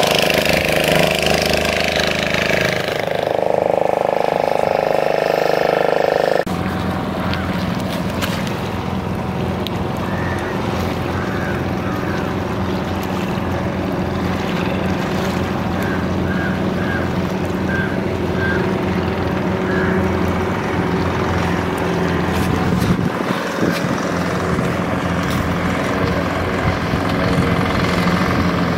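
A motorboat engine running steadily, a low, even drone that sets in abruptly about six seconds in after a brighter, different sound.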